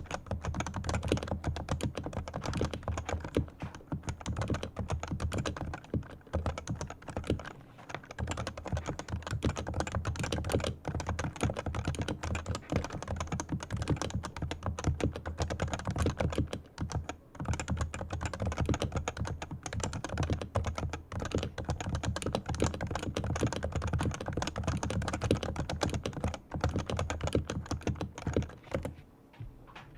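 Typing on a fully lubricated Leopold FC980C Topre electrostatic capacitive keyboard: a fast, continuous stream of keystrokes with a few brief pauses, stopping just before the end.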